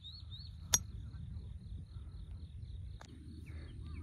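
A golf club strikes a ball with one sharp click about three-quarters of a second in, and a fainter click comes about three seconds in. Insects chirr steadily throughout, over a low wind rumble.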